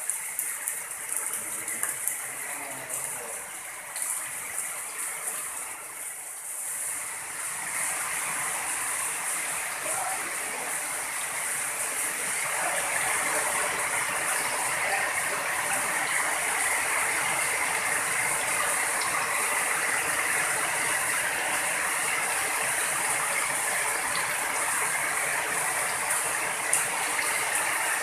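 Heavy rain falling steadily, at first mixed with water rushing along a concrete drainage channel; the downpour grows louder and denser about eight seconds in.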